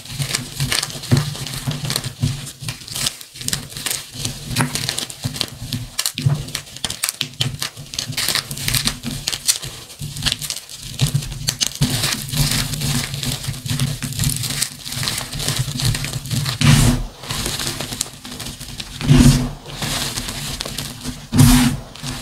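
Dyed gym chalk blocks and reformed chalk pieces crunching and crumbling as hands squeeze them: a dense run of small crackles, with a few louder thuds near the end.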